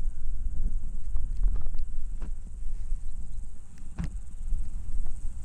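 Wind buffeting the microphone, with a steady high-pitched insect drone behind it and a few scattered clicks, the sharpest about four seconds in.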